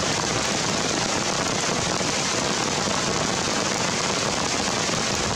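Steady rain falling on forest trees, an even hiss that doesn't let up.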